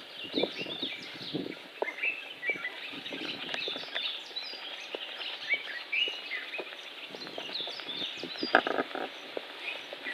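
A chorus of birds chirping and calling, many short rising and falling notes overlapping. Soft footsteps and light knocks come through underneath, the loudest about three quarters of the way in.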